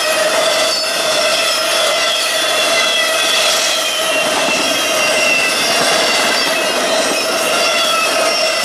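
Intermodal freight train's cars rolling past at speed: a steady, loud rush of wheels on rail, with several high steady tones ringing over it.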